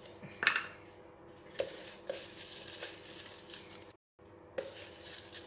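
A clear plastic jar handled and turned in the hands: a sharp click about half a second in, then a few lighter clicks and knocks with soft rustling.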